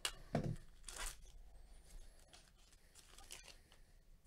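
Foil trading-card pack wrapper torn open by hand: a few short rips and crinkles, the loudest in the first second, then a smaller crinkle a little past three seconds as the cards come out.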